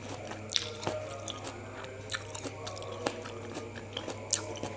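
A person chewing juicy fruit with peanut sauce close to the microphone: irregular soft wet clicks and squelches of the mouth over a steady low hum.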